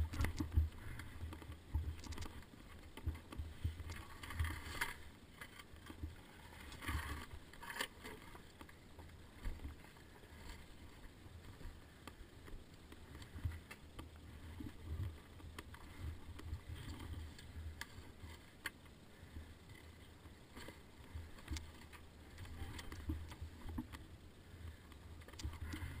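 Dirt bike crawling slowly over rocks: a low, uneven rumble with scattered knocks and clatter as the bike and the rider's boots hit the rocks.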